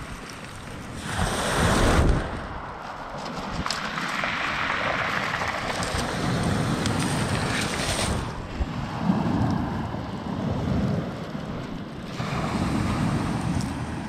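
Sea waves breaking and washing on the shore in repeated swells, with wind rumbling on the microphone. The loudest wave breaks about a second in.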